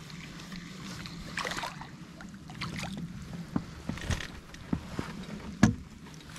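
Light knocks and water sounds as a small perch is reeled in and lifted from the water beside an inflatable boat, with one sharper knock near the end.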